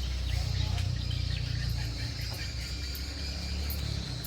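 Steady high-pitched insect trill over a constant low rumble, with a few faint short chirps.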